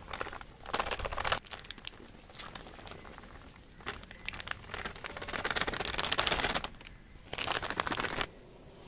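Spices crackling and sizzling in hot coconut oil as Kashmiri chilli powder is poured into the pan. The crackle comes in three bursts: about a second in, again from about four seconds for a couple of seconds, and once more near the end.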